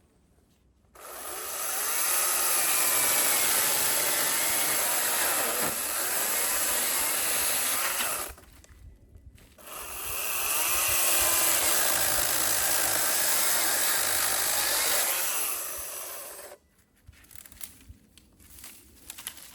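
Chainsaw cutting through timber in two cuts of about seven seconds each, the pitch wavering under load, with a short pause between them.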